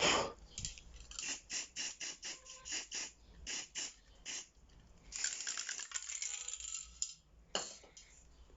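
An aerosol spray-paint can being shaken, its mixing ball rattling about three times a second, followed by a hissing spray of paint lasting about two seconds and a short burst near the end.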